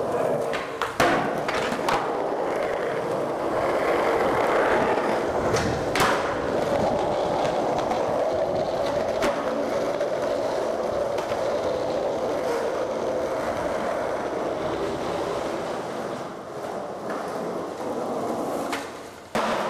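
Skateboard wheels rolling steadily on smooth concrete, with several sharp clacks of the board now and then, the loudest about a second in, around six seconds in and near the end.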